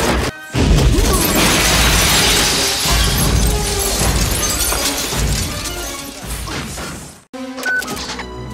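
Film fight-scene sound effects over film score music: a loud crash followed by a long spell of shattering and clattering that fades out. It cuts off abruptly about seven seconds in, with a short beep and a few clicks after it.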